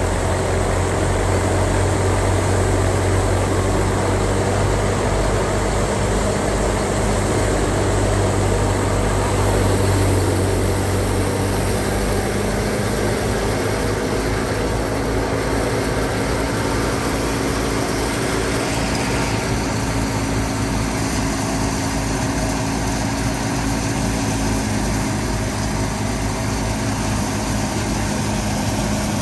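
Fiat 480 tractor's three-cylinder diesel engine running steadily under load with a threshing machine, a continuous mechanical drone; the engine note shifts about twelve seconds in.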